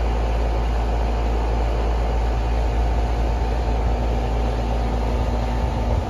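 Carrier heat pump outdoor unit running steadily in heat mode: an even fan and compressor hum with faint steady tones, running normally now that the low-voltage short is repaired.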